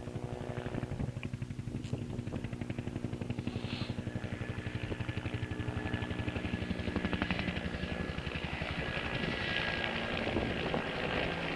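Helicopter close by, its rotor blades beating in a fast, even pulse over the steady engine note, with a turbine whine and rushing air growing stronger in the second half.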